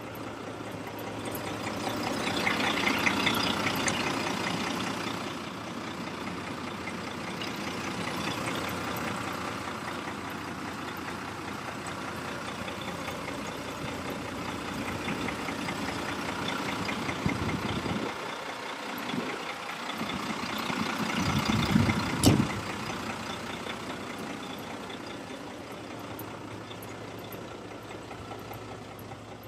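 Heavy truck diesel engine idling steadily, with one sharp knock about two-thirds of the way through.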